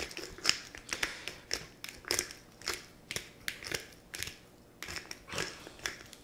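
Hand-twisted lemon pepper grinder being cranked over fish fillets, giving a run of short gritty crunching clicks, about two a second. It is barely dispensing, which the cook puts down to old seasoning.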